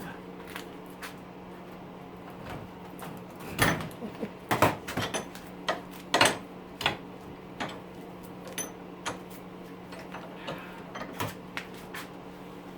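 Irregular clicks and sharp metallic knocks of hand tools at work on a small electric motor being torn down for its copper windings, busiest a few seconds in, over a steady low hum.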